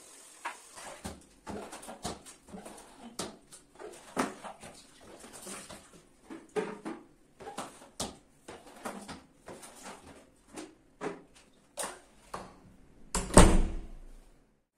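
A run of light, irregular knocks and clicks from household objects being handled, with one louder thump near the end.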